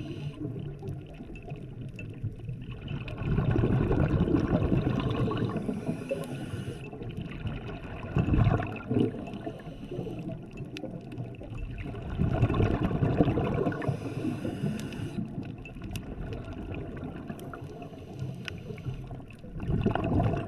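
Underwater sound of a scuba diver breathing through a regulator: slow breaths, each a hiss on the inhale and a gurgling surge of exhaled bubbles.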